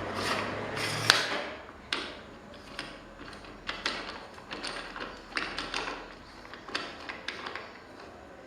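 Workshop handling noises: a string of short scraping strokes and light knocks, with a sharp knock about a second in.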